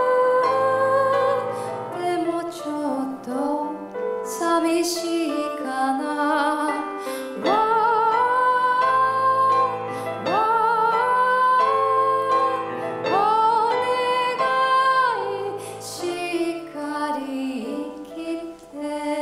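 A woman singing a slow, gentle ballad live into a microphone with soft instrumental accompaniment; long held notes scoop up into pitch and waver with vibrato, and the voice thins out near the end.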